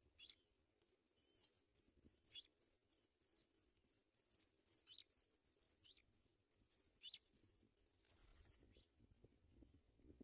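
African pipit nestlings begging for food: a rapid, uneven string of thin, high-pitched cheeps that starts about a second in and stops near the end.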